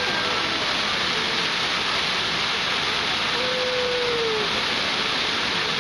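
Many fountain water jets spraying up and splashing back down into the pond, a steady hiss of falling water.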